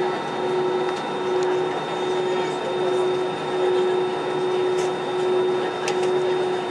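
Airbus A320 cabin noise on the ground: the jet engines idling with a steady hum and a held tone that swells and fades about once a second. A few light cabin rattles come near the end.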